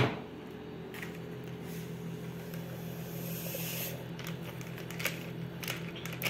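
Plastic packet of powdered gelatin crinkling as the powder is poured and shaken into hot water in an aluminum pitcher, with a soft pouring hiss about three seconds in and a few crinkles near the end. A steady low hum runs underneath.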